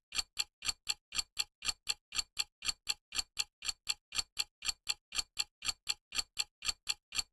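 Clock-ticking countdown sound effect: a steady tick-tock of sharp clicks, about four a second, that stops shortly before the end.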